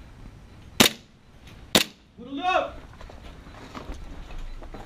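Two sharp shots from an airsoft pistol, about a second apart, followed by a brief voice calling out.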